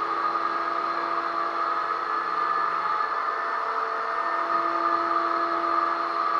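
Electric drywall sander running steadily: a constant motor whine over a hiss.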